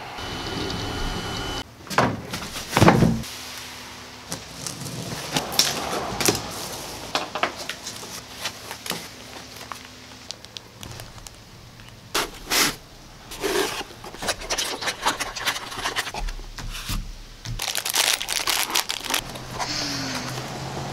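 Cardboard packaging and foam being handled while a 3D printer is unboxed: irregular rustling, scraping and knocking as box flaps are opened and small cardboard boxes and parts are lifted out, with the loudest knocks about two and three seconds in.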